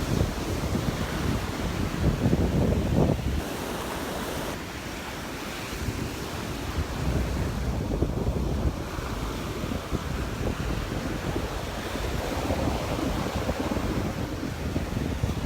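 Gusty wind buffeting the microphone over the steady wash of waves breaking on a sandy beach.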